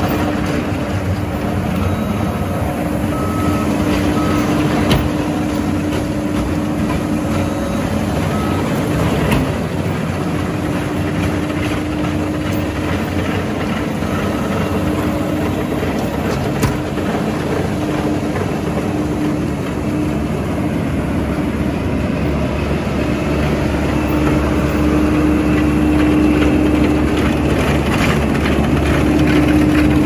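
Diesel engines of a W50 DC cold milling machine and a New Holland skid steer with a sweeper broom, running steadily under load while milling and sweeping asphalt, with a drone that comes and goes.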